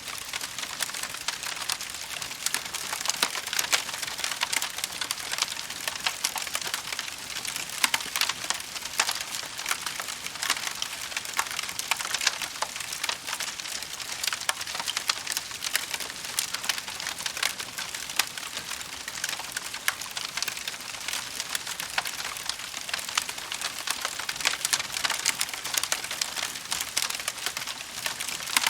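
Wood fire crackling steadily, a dense patter of small crackles and hiss with occasional louder pops.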